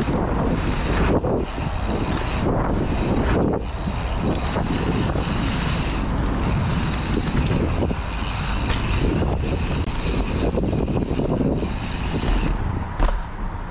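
Wind buffeting the microphone and knobby mountain-bike tyres rolling over packed dirt at speed down a jump line: a loud, steady rush. One sharp knock comes near the end.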